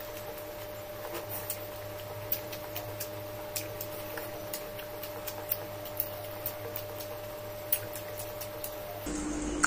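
Mouth chewing sausage: irregular small clicks and smacks, a few to several a second, over a steady faint hum.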